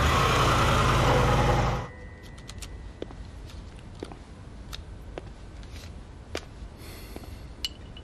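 A car engine runs loudly, then cuts off abruptly about two seconds in. A quiet room follows, with sparse sharp paper clicks and a brief rustle as a stack of banknotes is thumbed through by hand.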